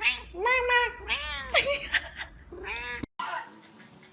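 Domestic cat meowing: several short, arching meows in quick succession that cut off abruptly about three seconds in.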